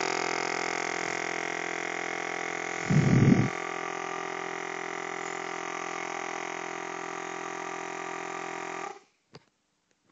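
Rebuilt air suspension compressor pump running on the bench, pumping into a pressure gauge: a steady electric motor and piston hum, with a brief low rumble about three seconds in. The pump cuts off suddenly near the end, followed by a single click.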